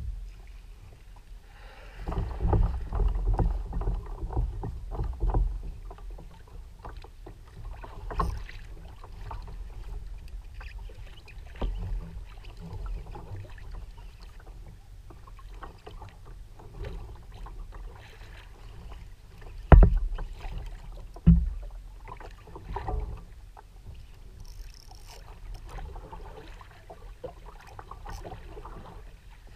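Sea water slapping and splashing against the plastic hull of a Hobie Revo 13 fishing kayak, with scattered knocks and bumps on the hull. The busiest stretch is a few seconds in, and two sharp thumps come about two-thirds of the way through.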